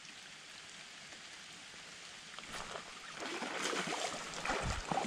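Light rain falling steadily on a small creek. From about halfway through, irregular knocks and rustling from handling the rod and camera grow louder, with a few low thumps near the end.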